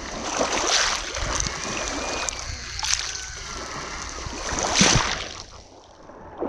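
Black Sea waves breaking on the shore, three louder crashes with the wash of water in between, the last and loudest about five seconds in.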